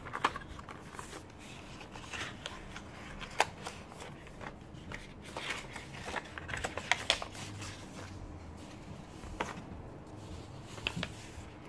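Paper card envelope and packaging being handled: paper sliding and rustling, with scattered light taps and clicks as washi tape rolls are pushed into the sleeve and the package is set down.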